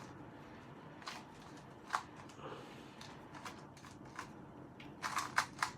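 Plastic 2x2 Rubik's cube being turned by hand: scattered clicks and clacks as the layers snap round, with a quick run of clicks near the end.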